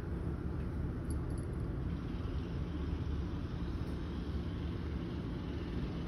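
Steady low background rumble with no clear events, like outdoor ambient noise; a faint, brief high chirp about a second in.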